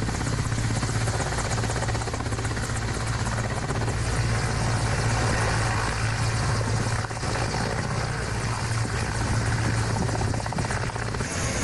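Large military transport helicopter running close by on the ground, its rotor and turbine engines making a steady, heavy low drone over a continuous rushing hiss.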